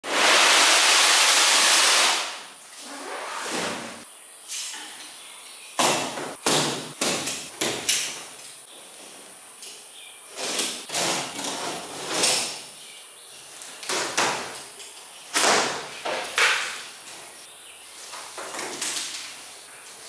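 A large cardboard box scraped along a concrete floor for about two seconds. Then a utility knife slits the packing tape and the cardboard flaps are pulled open, in a run of short scrapes, rips and knocks.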